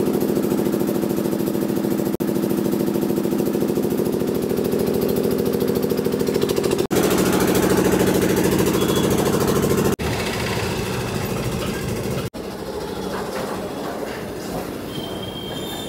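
A motor or engine running steadily: a low hum with a fast pulse. After about ten seconds it gives way to a quieter, rougher background with a short high tone near the end.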